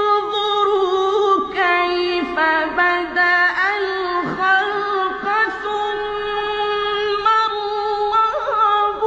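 A man chanting Quran recitation in the melodic mujawwad style: one high voice holding long, ornamented notes with slides between pitches.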